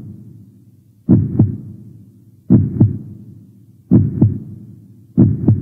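Heartbeat sound effect: low double thumps, lub-dub, repeating evenly about every one and a half seconds, four beats in all.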